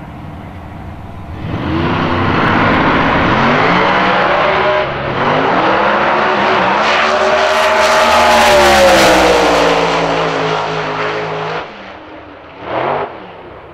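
Two drag cars, one a Procharger-supercharged Holden Torana hatchback, launching hard off the start line about a second and a half in and running flat out down the strip, the engine note climbing and then falling away. The sound drops off sharply near the end.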